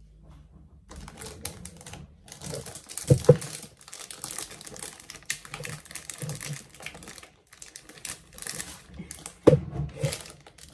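Plastic wrapping crinkling and rustling as a computer power supply in its bag is handled and lifted out of its box, with two sharp knocks, about three seconds in and near the end.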